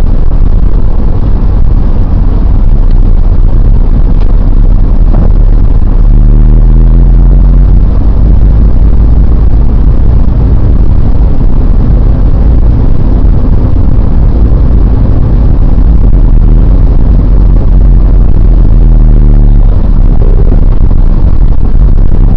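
Car engine and road noise heard from inside the cabin, loud and mostly a low rumble. A steady low engine hum stands out near the start and again near the end.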